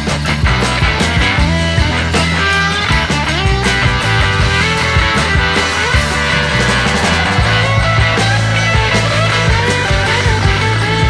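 Background music: a rock-style track with guitar, bass and a steady beat.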